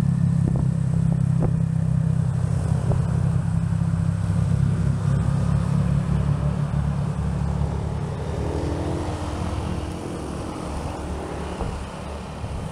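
Motorcycle engine running steadily under the rider, with hiss from tyres on a wet road; the engine note quietens about eight seconds in.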